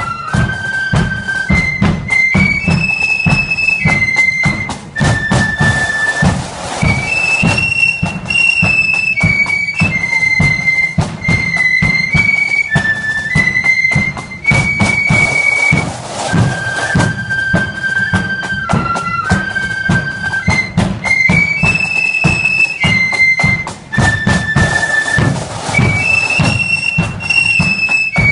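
Marching flute band playing a melody in unison on flutes over a steady drum beat. The same tune comes round again about halfway through.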